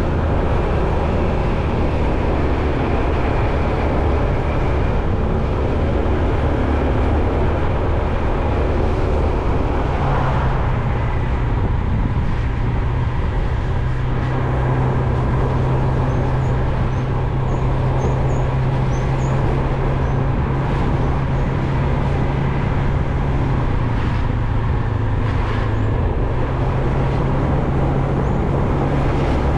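A motor vehicle running steadily, with a low engine tone that steps up in pitch about ten seconds in.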